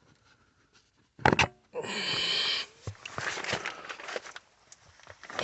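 Handling noises: a sharp knock about a second in, a short hiss just after it, then scattered rustling and small clicks.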